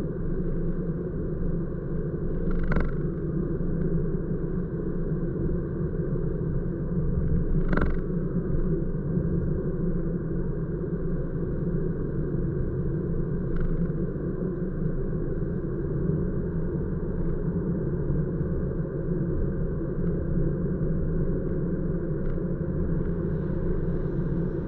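Steady rumble of a car driving along an open road, engine and tyre noise heard from inside the cabin, with two short knocks about three and eight seconds in.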